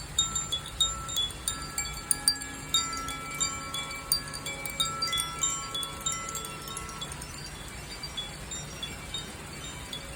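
Zaphir 'Sunray' chime being rung, its clapper striking the tuned metal rods in quick succession so that bright tinkles overlap with longer ringing tones. The strikes are dense for about seven seconds, then thin out to lighter, sparser tinkling.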